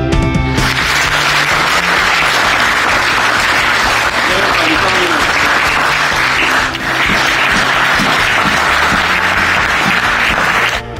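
A group of people clapping in steady applause that starts about half a second in and stops just before the end, with background music faintly underneath.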